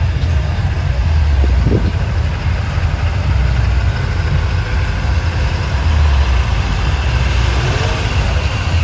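Army truck's diesel engine running steadily at low revs, a deep rumble that swells and eases slightly.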